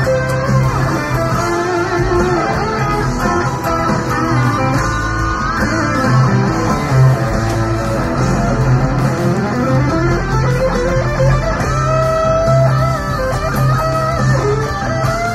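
Electric guitar from a red V-shaped solid-body playing a rock lead line of held notes with bends, including a long slide down and back up about halfway through, over a steady low bass.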